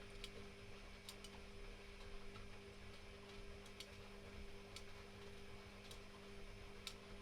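Privileg Classic 30612 washing machine humming faintly and steadily, with a few sharp clicks scattered about once a second.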